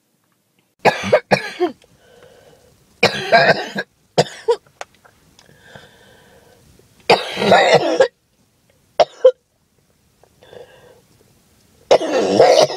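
A woman's harsh, hacking coughing in several separate fits, some short and sharp and some lasting almost a second, with quieter breaths between them. It is an asthma cough that comes on, by her own account, when she skips her breathing treatments.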